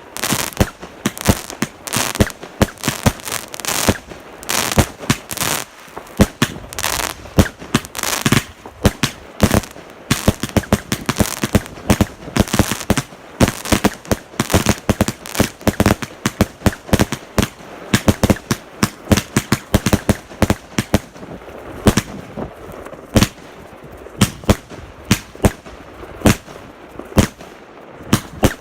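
Fireworks going off: a dense, rapid run of bangs and crackling pops that thins out to separate bangs over the last several seconds.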